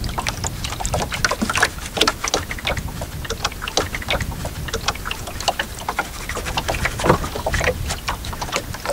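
Small waves lapping against the hull of a wooden rowing tender: many short, irregular splashes and clicks, over a low steady rumble of wind.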